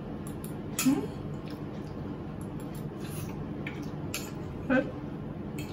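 Metal fork clicking and scraping in a small plastic bowl while noodles are eaten. There are a few short sharp clicks, the loudest about a second in and again near the end.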